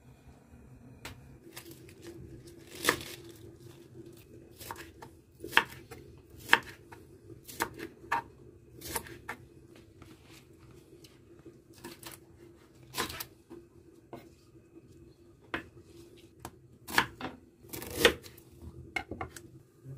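A knife cutting green onions and ginger on a wooden chopping board: irregular sharp knocks each time the blade meets the board.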